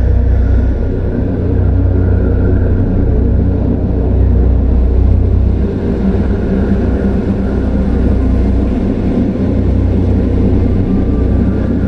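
Dark horror ambience: a loud, steady low rumbling drone, with faint higher tones swelling in and out over it.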